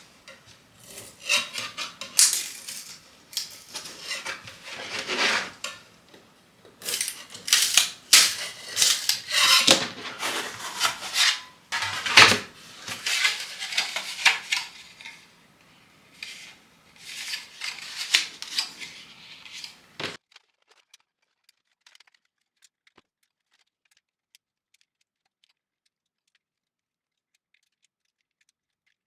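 Small hard objects being handled, clicking, clinking and clattering against a work surface for about twenty seconds; it then stops and all goes silent.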